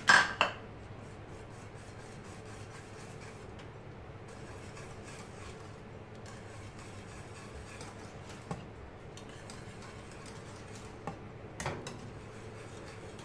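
Wire whisk stirring thick béchamel sauce in a metal saucepan while grated cheese melts in: a soft steady rubbing, with a few light clinks of the whisk against the pan, twice near the end.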